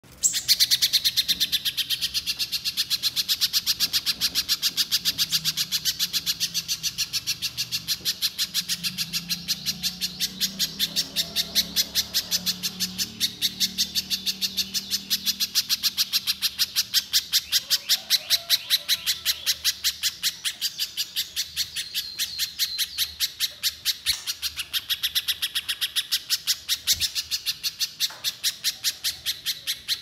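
Little spiderhunter (pijantung pisang) singing a long, unbroken run of sharp, high chipping notes, repeated evenly at about three a second.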